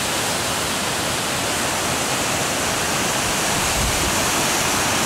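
Waterfall pouring into a river, a steady rushing roar of falling water.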